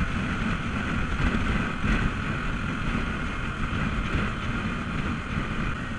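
Yamaha Sniper 150's single-cylinder engine running steadily at road speed, about 70 km/h, with wind buffeting the microphone.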